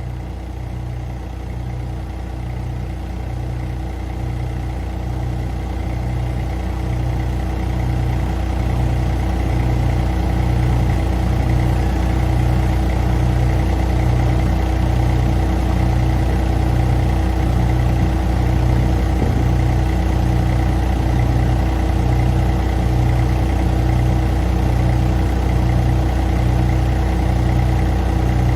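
Vehicle engine running steadily at idle, with a slow, even throb in its low note; it grows a little louder over the first ten seconds, then holds steady.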